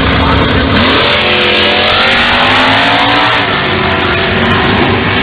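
Two drag-racing cars launching side by side, their engines held at steady revs and then rising in pitch from about a second in as they accelerate hard down the strip.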